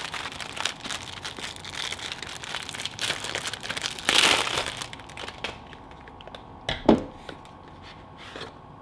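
Crinkling and rustling of the Particle Electron's packaging, a clear plastic case and printed card, as it is handled and opened by hand, louder for a moment about four seconds in. A single sharp knock follows about seven seconds in.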